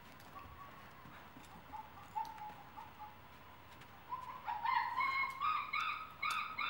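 A dog whining: faint, thin held whines at first, then louder, stepped whimpers from about four and a half seconds in.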